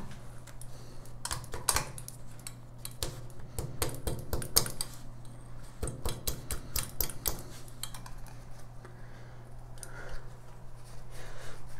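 Hammer tapping a plastic wall anchor into a hole drilled in ceramic tile, in several quick runs of sharp taps; the anchor is a snug fit in the hole.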